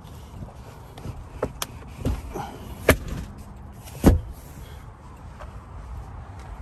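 Doors and latches of a 2022 Land Rover Defender 110 being handled: a few light clicks and knocks, then two heavier thuds about three and four seconds in, the second a door shutting.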